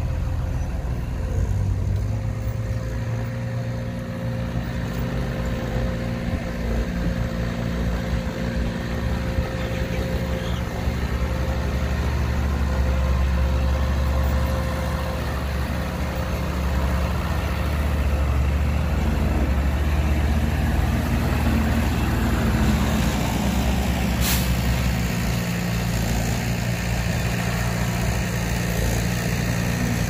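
Heavy diesel engines of a bulldozer and dump trucks running steadily, a deep drone that swells a little in the middle, with one short sharp click late on.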